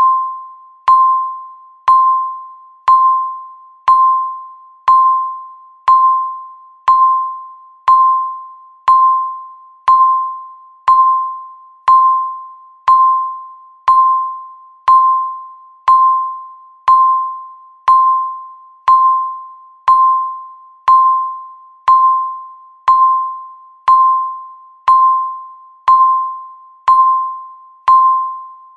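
Countdown timer beep ticking off the seconds: a single electronic tone, one a second, each starting sharply and fading away before the next.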